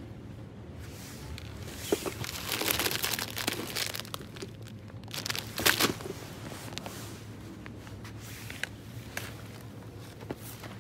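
Packaging crinkling and rustling as it is handled. There is a longer burst about two seconds in and a short, louder one near six seconds, with a few scattered clicks later, over a steady low hum.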